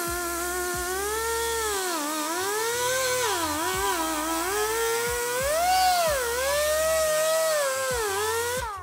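Pneumatic air grinder with a wire brush wheel running against a steel gas tank to strip paint. Its whine slides down and back up again and again as the brush is pressed on and eased off, with a hiss over it, and it cuts off suddenly near the end.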